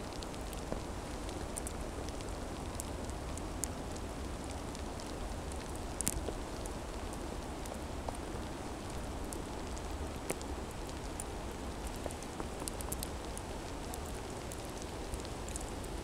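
Steady soft pattering of wet snow falling on spruce branches and leaves, with many scattered light ticks, over a low steady rumble.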